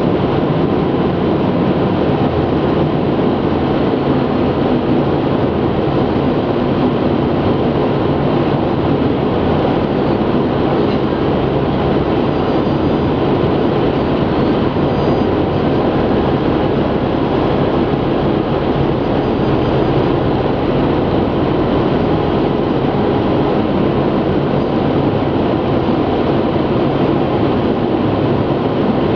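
Steady road noise inside a car cabin at motorway speed: tyres rumbling on the asphalt, with engine hum and wind noise.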